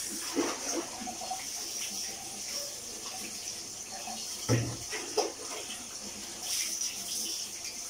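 Water scooped with a plastic tub and poured over a dog's back during its bath, splashing, with a couple of louder splashes about halfway through, over a steady hiss of running water.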